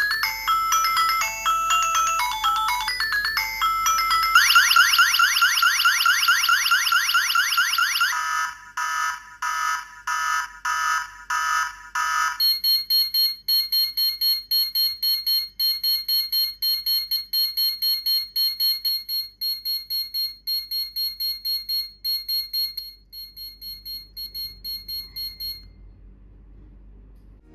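Tuya Wi-Fi smart siren alarm stepping through its built-in alert tones. First a short electronic chime melody, then a few seconds of rapid rising siren sweeps, then slow pulsed beeps. It ends with fast beeping at about three beeps a second that turns quieter and stops a couple of seconds before the end.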